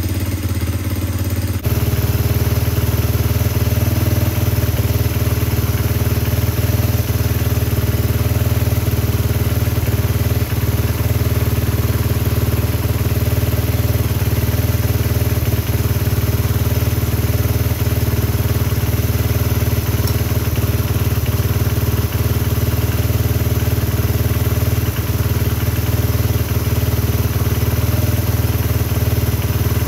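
Honda XR100R's small air-cooled single-cylinder four-stroke engine idling steadily.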